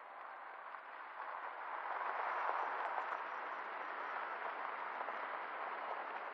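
Tyres of a Ford F-150 pickup rushing over a dirt-and-gravel road, a steady noise that grows louder over the first couple of seconds and then holds, with no engine note standing out.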